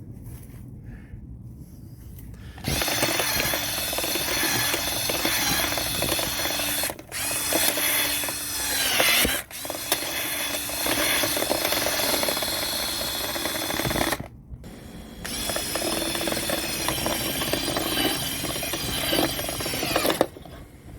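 Power drill spinning a rotary dryer-vent cleaning brush in the duct. It starts a couple of seconds in and runs about eleven seconds with two short breaks and a brief drop in pitch as it loads, stops, then runs again for about five seconds.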